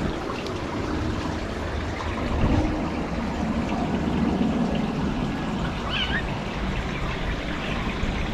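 A kitten gives one short, high mew about six seconds in, over a steady low rumble and hiss.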